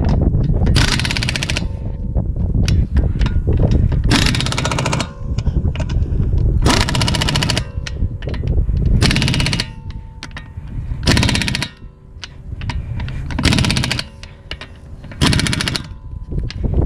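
Impact wrench running lug nuts onto a wheel: seven short rattling bursts of hammering, each under a second, about two seconds apart.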